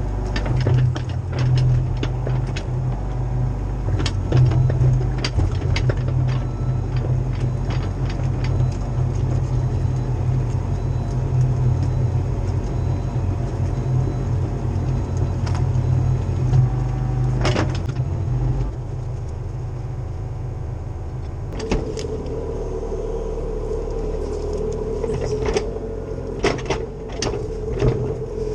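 Cat 304CR mini excavator's diesel engine running steadily while working, with scattered knocks and clanks. About two-thirds of the way through the low engine note drops and a steady higher hum comes in.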